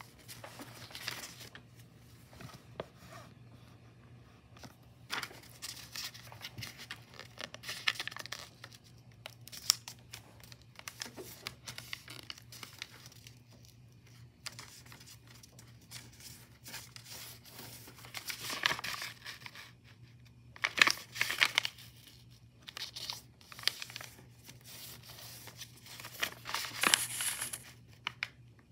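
A sheet of white paper being folded and creased by hand on a desk: irregular rustling and crinkling as it is slid, pressed and smoothed flat. A few louder rustles come in the latter part.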